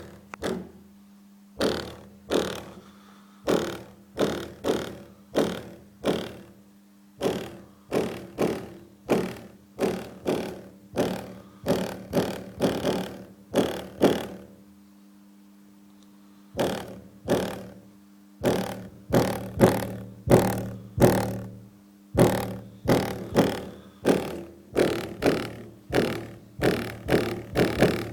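Broken MTX subwoofer playing a beat. Each bass note comes out as a sharp, distorted hit, about two a second, over a steady low tone, with a pause of about two seconds midway: the sound of a failed driver.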